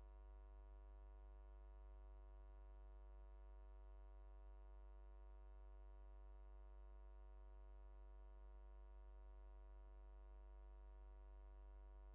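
Near silence: only a faint, steady hum with many even overtones and nothing else happening.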